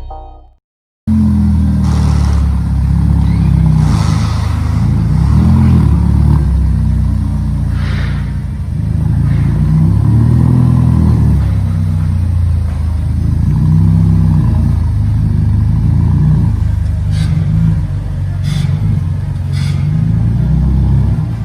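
Ferrari Roma's V8 engine running, starting suddenly about a second in, its revs rising and falling several times as the car is driven. A few short sharp clicks near the end.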